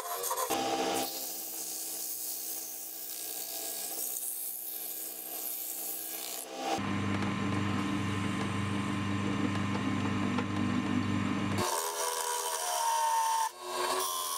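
A turning tool cutting a spinning wooden blank on a lathe, a continuous scraping of shavings coming off the wood. About halfway through, for roughly five seconds, a drill bit held in the lathe's tailstock chuck bores into the spinning wood with a steady low hum, and then the tool cutting resumes.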